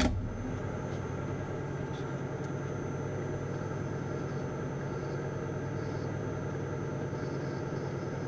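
Metal lathe starting with a clunk, then its motor and headstock running steadily, four-jaw chuck spinning at speed with a low even hum.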